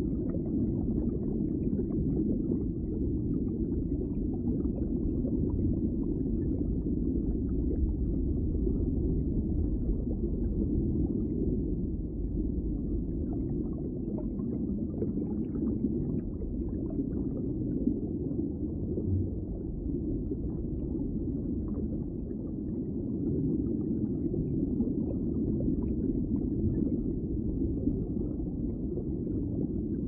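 Steady, muffled rush of running water, with faint scattered ticks over it.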